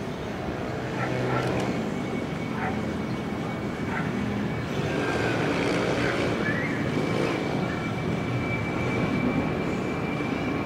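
Boeing 747-400 jet engines running at power on the takeoff roll, a steady rumble with a high steady whine that comes in about halfway through and holds.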